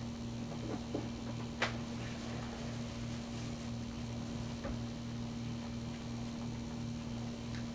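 Steady low electrical hum with a few faint ticks, and one sharp click about one and a half seconds in.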